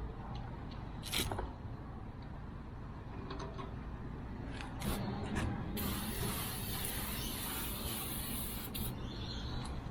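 Degreaser being sprayed: a short hiss about a second in, two more a little before halfway, then a steady hiss through the last four seconds.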